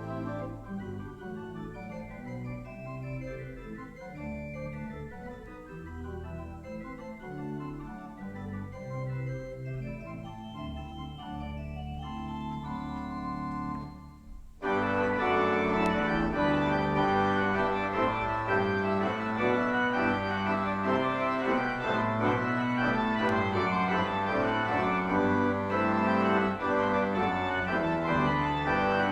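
Church organ playing sustained chords, soft at first, then abruptly much louder and fuller about halfway through.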